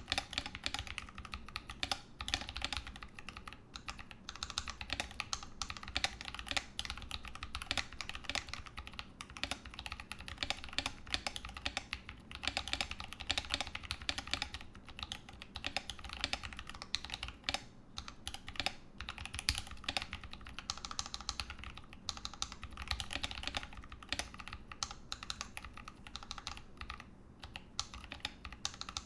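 Continuous fast typing on a Ramaworks M60-A mechanical keyboard with Holy Panda tactile switches and GMK Pristine keycaps, with dense key clacks and a few short pauses.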